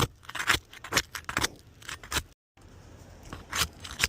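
Metal pry bar clicking and scraping against CertainTeed Patriot asphalt shingles in quick repeated strokes, about two or three a second, as they are pried at. The shingles are stuck down so hard that they tear rather than release. The sound cuts out briefly about halfway through.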